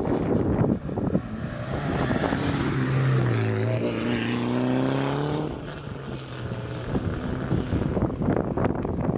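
Rally car engine running hard on a gravel stage, its note dipping and then climbing again around the middle before fading, with rough crackling noise at the start and the end.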